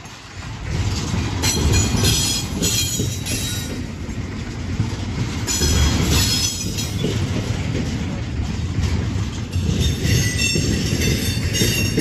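Double-stack intermodal freight train rolling past: a steady rumble of steel wheels on rail, with high-pitched wheel squeal that comes and goes, loudest about two seconds in, around six seconds, and again near the end.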